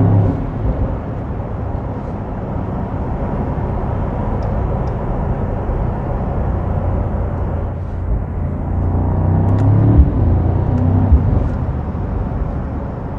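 Mercedes-AMG SL63's twin-turbo V8 running steadily under way, with tyre and road noise, heard from inside the cabin. The engine hum swells about eight seconds in, and two short knocks come soon after.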